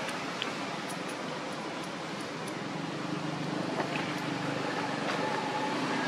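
Steady outdoor background noise with a few faint clicks, growing slightly louder near the end with faint steady tones, in the manner of distant motor traffic.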